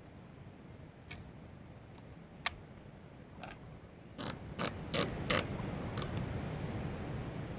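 Turret of a Nikon Black FX1000 riflescope being turned by hand, giving sharp clicks: a few single clicks, then a quick run of four louder clicks about halfway through and two more near the end.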